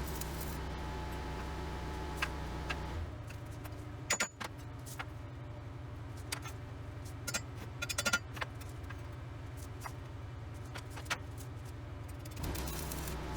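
Light metallic clinks and rattles, with a cluster of them around a third of the way in and another just past halfway, over a steady low hum.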